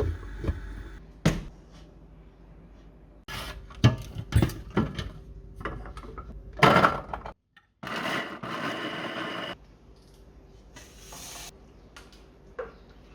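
Kitchen handling sounds: scattered knocks and clatters of dishes and utensils. After a sudden break about seven seconds in comes a couple of seconds of rushing, hissing noise, then a shorter burst of the same and a last small knock.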